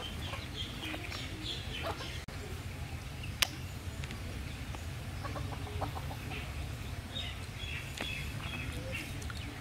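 Chickens clucking now and then over a steady low hum, with one sharp click about three and a half seconds in.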